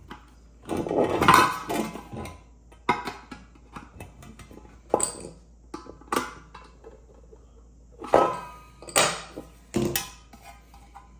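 Metal pressure cooker and its lid or parts being handled: a clatter about a second in, then a series of separate clinks and knocks.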